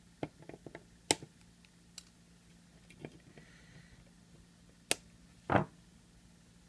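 Flush cutters snipping the excess capacitor leads off a circuit board: a series of sharp clicks over the first few seconds and a stronger snap nearly five seconds in, followed by a louder dull knock.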